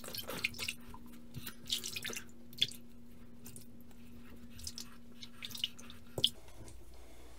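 Water dripping and splashing in a bathroom sink, with scattered small taps, over a low steady hum that stops with a click about six seconds in.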